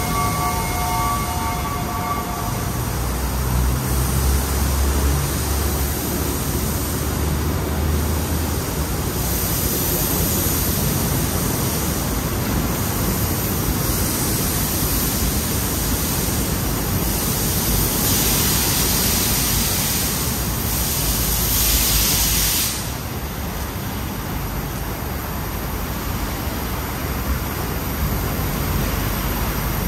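Steam locomotive standing at a station: a steady hiss and rumble. Its whistle, a chord of several tones, cuts off about two seconds in and starts again right at the end, rising in pitch as it sounds.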